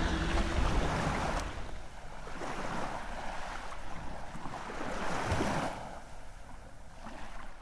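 A soft rushing noise, like surf, with a low rumble in the first second and a half, then swelling and fading twice.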